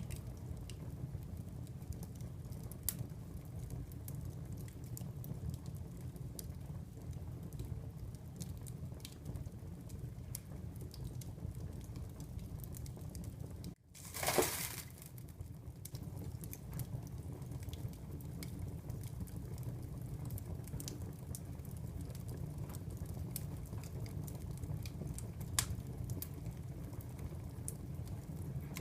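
Wood fire crackling in a fireplace: scattered sharp pops over a steady low rumble. About halfway through, the sound cuts out for an instant, then a brief louder hiss comes in and drops in pitch.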